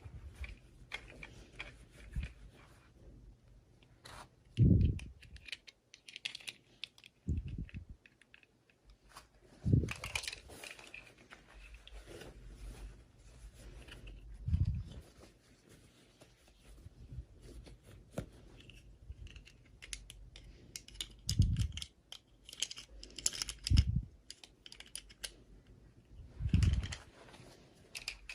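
Small plastic toys and packaging handled up close: crackling, light tearing and tapping clicks, with several dull knocks as pieces are set down or bumped.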